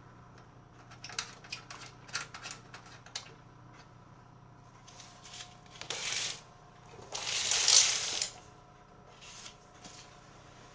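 Hands handling equipment: a quick run of small clicks and taps, then bursts of rustling and scraping, the loudest about seven to eight seconds in.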